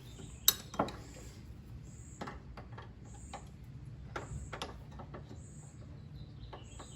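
Sharp metal clinks of a wrench on a brake line fitting, loudest about half a second in, then fainter taps. A bird chirps with short high notes about once a second.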